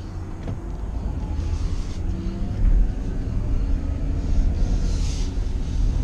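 Vehicle engine running and tyres hissing on wet pavement, heard from inside the cab as it pulls out onto the road and picks up speed, growing gradually louder.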